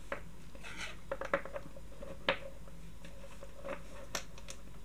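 Light clicks and taps of AA batteries and thin wire leads being handled and pressed together by hand, with a sharper click a little after two seconds in.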